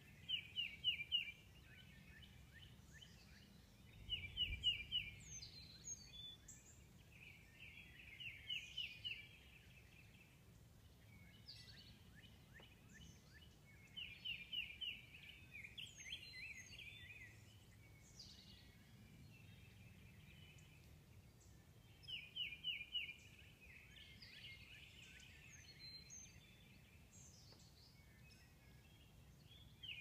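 Songbirds singing in the trees: one bird repeats a short phrase of quick, evenly spaced notes every few seconds, with thinner, higher calls from other birds in between.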